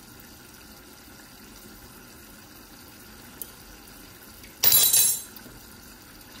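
A loud, half-second slurp as sauce is sipped off a spoon to taste the stew, about two-thirds of the way in, over the low steady simmer of the stew in its pan.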